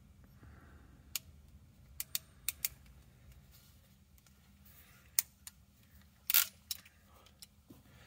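Ratcheting hand crimper closing on a pull-to-seat weatherproof terminal on a small blue wire: a few sharp, separate clicks, the loudest about six seconds in.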